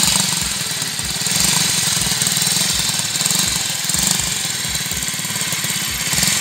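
Ducati Cucciolo 48cc single-cylinder four-stroke clip-on bicycle engine running at idle, its short stubby exhaust popping in a quick, even beat.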